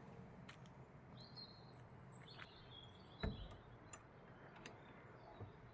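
Near silence with a few faint, high bird chirps in the first half and a single soft thump about three seconds in.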